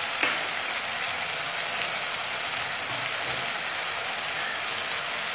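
Chopped water spinach frying in mustard oil in a pan, a steady even sizzle, with one brief tap about a quarter second in.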